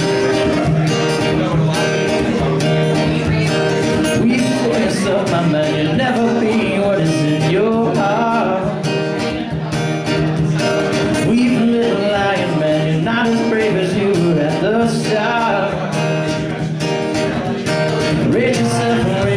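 An acoustic guitar strummed live, with a man's voice singing along in places.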